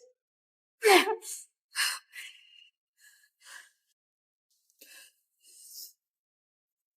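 A person's short gasps and breaths, a handful of separate sounds; the loudest, about a second in, is a voiced gasp falling in pitch.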